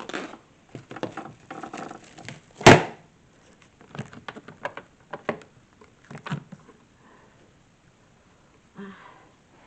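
Knocks and clatter of things being handled inside a new twin-tub washing machine, with one sharp, loud knock a little under three seconds in. The handling stops about six and a half seconds in.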